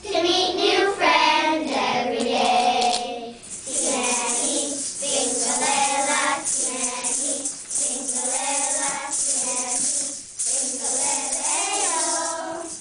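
Children's choir singing a song together, with maracas shaking along in the background.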